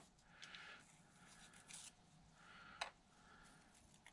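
Near silence with faint handling sounds: soft rubbing and one light click about three seconds in, as small carbon-fibre drag washers are set out on a plastic parts tray.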